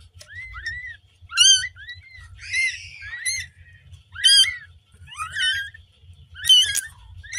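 Newborn kitten mewing just after birth: a string of short, high-pitched cries, several of them loud.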